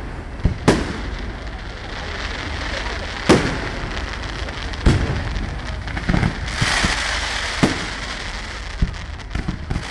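Aerial fireworks: shells bursting with sharp bangs every second or two, some singly and some in quick pairs. A spell of crackling hiss comes about six and a half seconds in.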